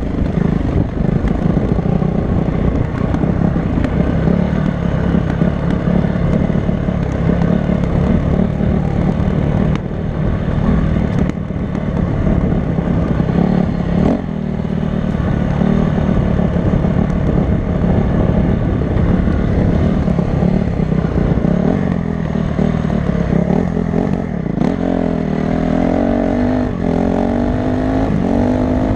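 Honda CRF250 dirt bike's single-cylinder four-stroke engine running under load, its pitch rising and falling with the throttle near the end. A few brief knocks are heard along the way.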